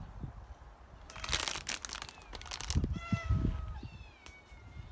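A cat meowing twice: a first meow about three seconds in, then a longer, drawn-out one that falls in pitch and holds. Before them comes a burst of rustling and crunching.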